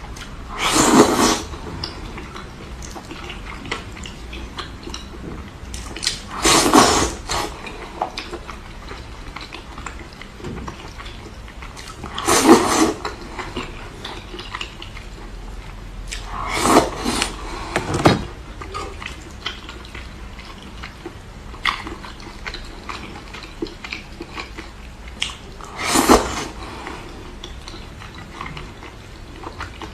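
Close-miked eating: about six loud, brief crunchy bursts every few seconds, with quieter chewing and small clicks between them.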